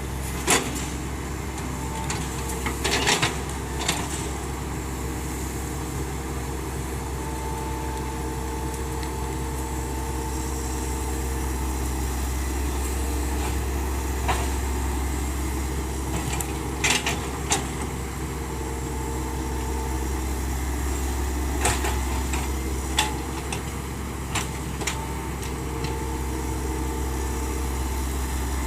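Hitachi Zaxis 110 excavator's diesel engine running steadily while working, with a higher tone that comes and goes. About nine short, sharp knocks are scattered through it.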